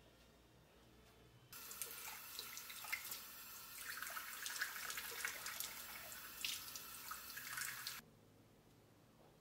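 Kitchen tap running into a small stainless-steel cup in the sink, a steady splashing stream. It starts suddenly about a second and a half in and cuts off shortly before the end.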